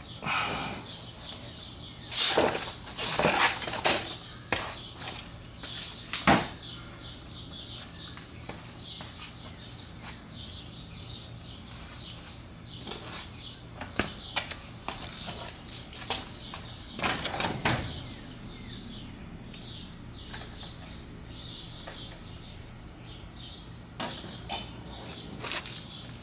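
Scattered metallic clinks and rattles of hand tools and parts being handled during a car clutch job, with the loudest clatters about two seconds in, around six seconds and near the middle. Birds chirp faintly in the background.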